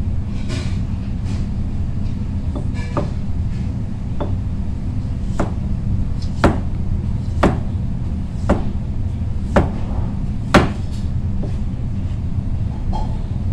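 Kitchen knife cutting down through peeled squash and knocking on the cutting board about once a second, over a steady low rumble.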